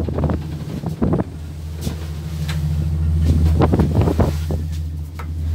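A ship's engines drone in a steady low hum, with wind buffeting the microphone in gusts now and then.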